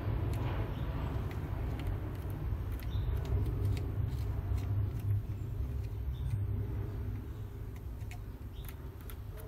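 A low rumble, strongest in the middle and fading toward the end, with a few faint clicks as a small pick presses the rubber seal onto the plastic connector of an electric car door lock.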